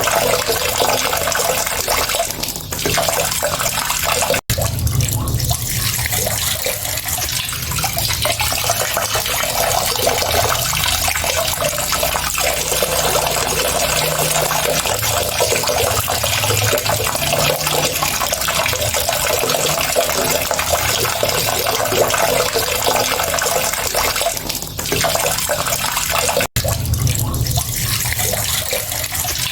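Water running steadily from a tap, an even splashing pour. It cuts out for an instant twice, about four seconds in and near the end.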